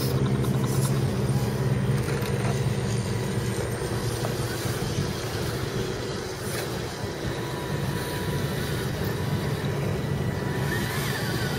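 Electric motors and gearboxes of radio-controlled scale crawler trucks running at low speed as they crawl over rough dirt ruts, with a steady low hum that is strongest in the first second.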